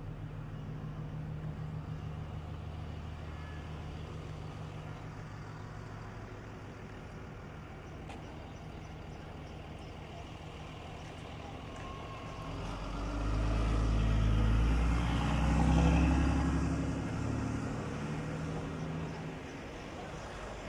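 Street traffic: an engine idles steadily at first, then a motor vehicle drives past close by, swelling to its loudest about two-thirds of the way through and fading away.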